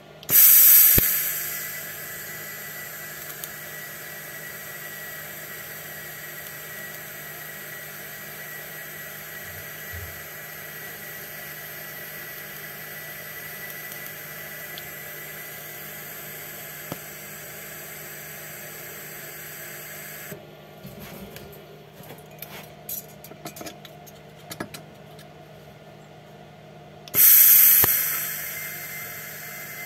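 TIG welding arc on a stainless steel exhaust pipe. It strikes with a loud hissing burst, then holds a steady hiss with a faint high whine for about twenty seconds. It stops, a few light clicks follow, and the arc is struck again a few seconds before the end.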